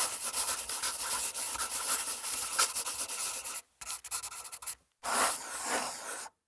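A scratchy rubbing or scraping noise in three runs with short breaks between them.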